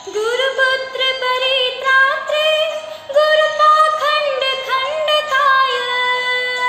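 A woman's solo singing voice in a devotional Sanskrit hymn to Ganesha, drawing out a vowel in an ornamented run with quick turns between notes, then settling on a long held note near the end.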